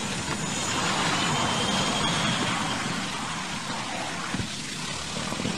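An aircraft crashing into a field and breaking up: a steady, noisy roar of the impact and the wreckage ploughing through the ground, with a faint high whine about two seconds in.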